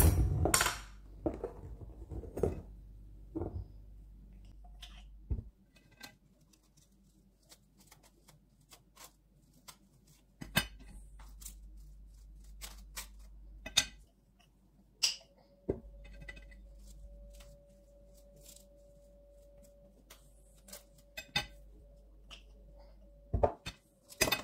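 A table knife clinks against a jar and a ceramic plate and scrapes spread across crisp rusks, in irregular sharp clicks and short scrapes. The busiest and loudest clatter is at the start. A faint steady hum comes in about halfway through.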